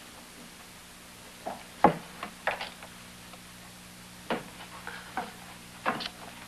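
Irregular knocking and tapping from the attic, about eight sharp knocks spaced unevenly a half second to a second apart, over a faint steady hum.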